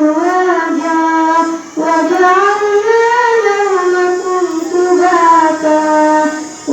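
A young girl's voice reciting the Quran in the melodic tilawah style: long held notes that bend and ornament in pitch, with a short breath about two seconds in and another near the end.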